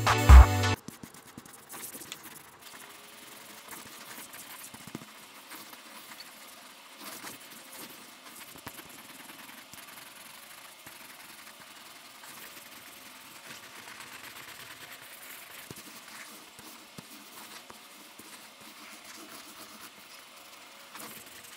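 Electronic music cuts off within the first second. After that, a felt-tip marker scratches faintly across paper in short, irregular strokes as drawing outlines are inked over.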